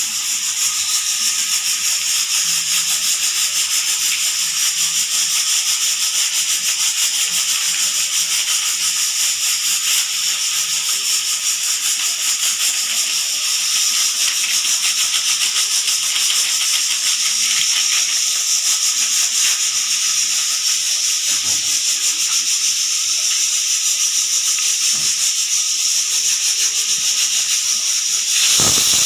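Pressure cooker venting steam at its whistle weight: a steady, fast-sputtering hiss of steam and bubbling liquid forced out through the vent under pressure, getting louder near the end.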